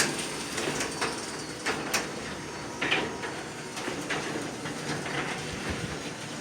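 A few sharp clicks of keypad buttons being pressed, then a Chamberlain HD220 chain-drive garage door opener running steadily as it raises the door.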